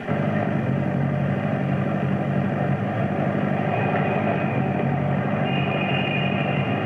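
US Army truck and jeep engines running steadily as the vehicles drive off, heard on an old film soundtrack; a higher steady tone comes in about five and a half seconds in.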